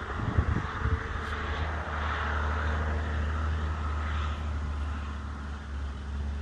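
A steady low engine hum, like a distant motor vehicle or aircraft, settles in about two seconds in, with wind buffeting the microphone before it.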